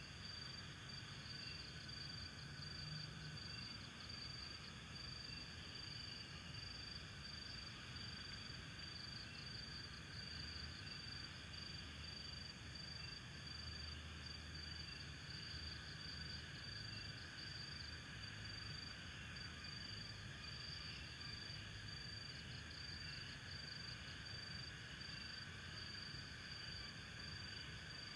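Crickets chirping: a steady, high-pitched trill that pulses continuously, over a faint low rumble.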